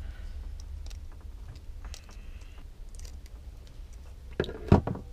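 Light clicks and taps of hand tools and wire being worked against a 12-volt socket splitter's circuit board, with two sharper clicks near the end.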